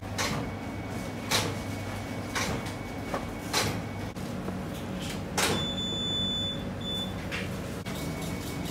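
Bakery workroom noise: irregular knocks and clatters of equipment being handled, about seven in all, over a steady machine hum.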